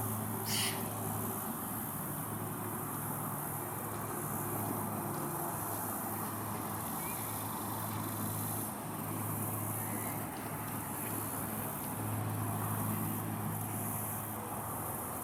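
Steady outdoor background of distant road traffic: a low hum that swells and fades, over an even hiss. A brief sharp chirp-like sound comes about half a second in.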